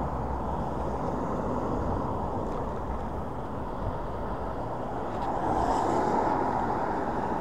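Steady rushing noise of riding a Hiboy S2 Pro electric scooter: wind on the microphone and tyres on the road. It grows a little louder about five and a half seconds in.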